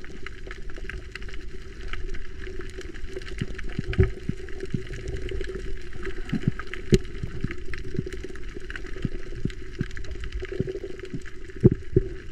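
Underwater sound over a coral reef, heard from a camera below the surface: a steady low hum with scattered sharp clicks and crackles, a few louder knocks about 4, 7 and 12 seconds in.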